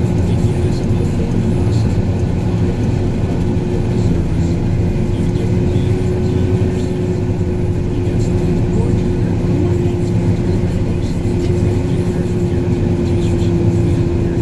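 Snow groomer (snowcat) engine and tracks running steadily under way, heard from inside the cab: a continuous low drone with a thin steady whine above it.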